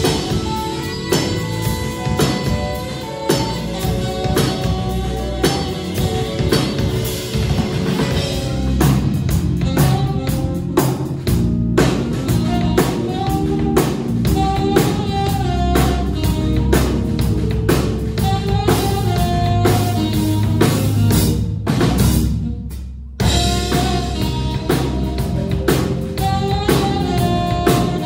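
Live jazz-funk quartet playing: a saxophone melody over electric bass, electric keyboard and drum kit. The band briefly drops out, leaving mostly the bass, a little past three quarters of the way through, then comes back in.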